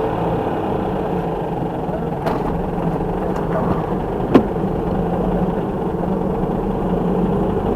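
Nissan Cube (Z12) running, with a steady engine and road drone. Two sharp clicks or knocks come through it, one a little over two seconds in and a louder one about four seconds in.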